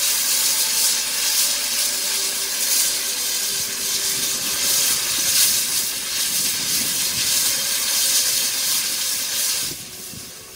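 Steam locomotive venting steam with a loud, steady hiss that drops away sharply near the end.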